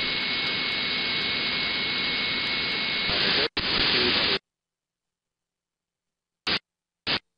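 AM airband radio static hissing from an RTL2832U software-defined radio dongle, with a steady high whistle in it for the first three seconds and no voice. It breaks off briefly, hisses again, then cuts off suddenly at about four and a half seconds, with two short blips of static near the end as the squelch opens and shuts.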